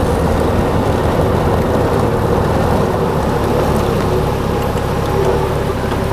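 Honda Gold Wing motorcycle underway: steady, loud wind and road noise with the engine's hum beneath it.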